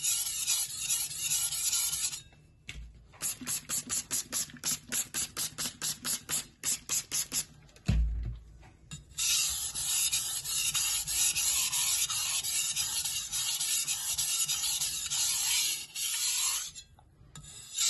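Chinese cleaver being sharpened on a wet whetstone: steady grinding strokes, then a run of about twenty quick short strokes. A dull knock comes about eight seconds in, followed by more steady grinding.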